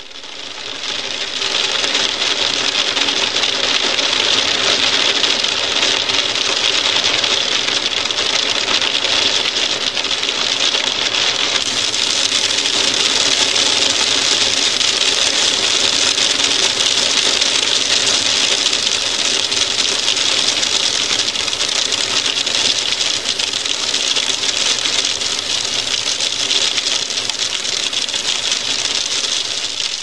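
Hail pelting a window: a dense, steady clatter of countless small hailstones ticking on the glass, mostly high and bright. It fades in over the first two seconds and fades out at the very end.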